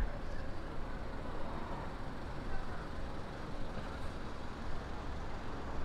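City street ambience: a steady wash of road traffic noise with a low rumble.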